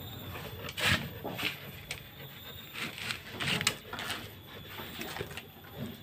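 Light clicks and knocks, a handful spread over a few seconds, from a wood-grain cabinet door being moved on its concealed cup hinges (engsel sendok bungkuk).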